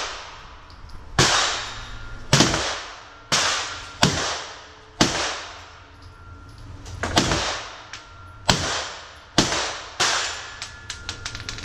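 Semi-automatic pistol fired about nine times, shots roughly a second apart with a pause of about two seconds midway, each crack ringing off the walls of an indoor range. Fainter cracks come near the end.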